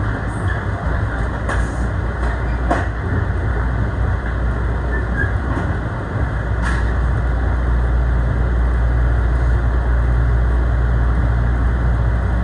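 Commuter train running, heard from inside the passenger car: a steady low rumble with a few sharp clicks, growing a little louder about halfway through.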